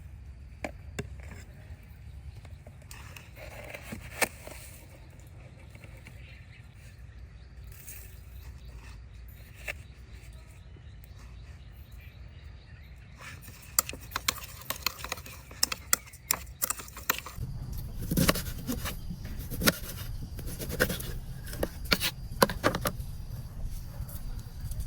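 Scattered sharp clicks and knocks over a low steady hum, turning into a dense run of louder knocks and scraping over the second half.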